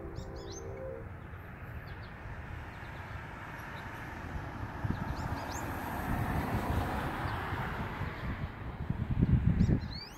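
American goldfinches giving short, high chirping calls: a cluster at the start, a couple midway and one rising call near the end. Underneath runs a steady low rumble that swells loudest just before the end.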